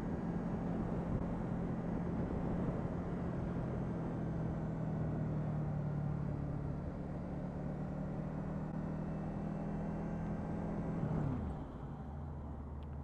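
Honda VFR800's V4 engine running steadily at road speed, heard from the rider's helmet, over road noise. About eleven seconds in the revs fall quickly and the engine note drops lower and quieter.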